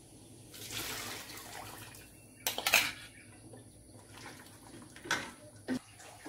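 Dissolved curry powder poured from a bowl into a metal cooking pot of fried spice paste, a soft splashing pour, followed by a quick cluster of clinks of a spoon against the bowl and pot about two and a half seconds in. Near the end a spoon clicks twice against the pot and a plate as it is set down.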